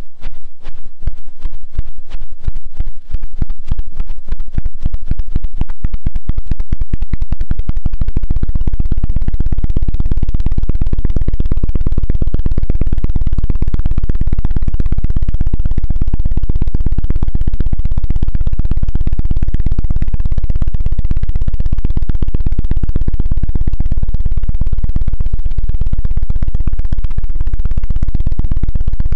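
Fast ASMR knocking close to the microphone, dull and low. The taps speed up over the first several seconds until they run together into one continuous rapid rattle.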